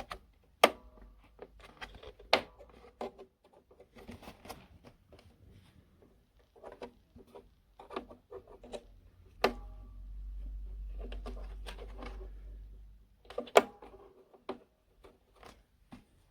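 Irregular sharp clicks and knocks with softer rustling and ticking, like an object being handled, four of them louder than the rest. A low rumble from about nine to thirteen seconds in.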